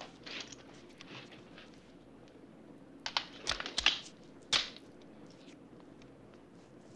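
Light handling noises: a few scattered short clicks and rattles, with a louder cluster of quick clicks about three to four and a half seconds in.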